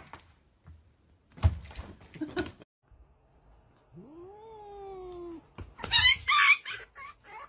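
A cat meowing: one long meow about four seconds in that rises and then slowly falls, then a louder, higher, wavering cry about six seconds in. Before them there are a few brief knocks.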